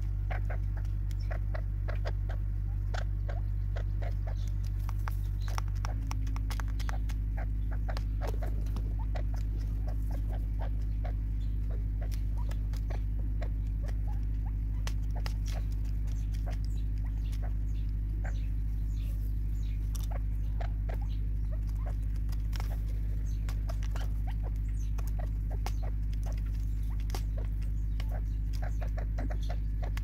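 Spurfowl pecking seed from a plastic bottle feeder: many quick, irregular ticks and taps of beaks on the plastic and the seed, over a steady low hum.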